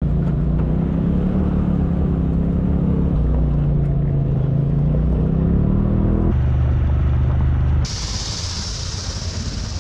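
Off-road side-by-side engine running while driving a dirt trail, its pitch rising and falling with the throttle, with a change to a steadier engine note about six seconds in. From about eight seconds in, a steady high hiss of a pressure washer spraying down a muddy side-by-side.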